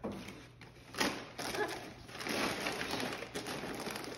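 Gift wrapping paper crinkling and tearing as a dog rips into a wrapped present, with a sharp rip about a second in and steady crackling tearing after it.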